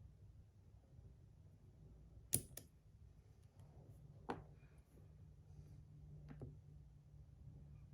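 A few short clicks from the small parts of a magnetic fidget slider being handled: a sharp one about two seconds in with a softer one just after, another around four seconds, and a faint pair near six seconds, over near silence.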